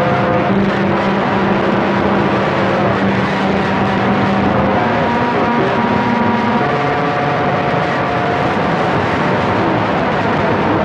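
CB radio receiver hissing with loud static, with several steady heterodyne whistles of different pitches coming and going over it as other stations' carriers overlap on the channel.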